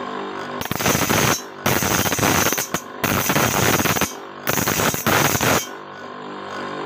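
A motor-driven grinding wheel runs with a steady hum while a steel saw blade's teeth are pressed against it four times, giving four grinding passes of about a second each as the teeth are sharpened.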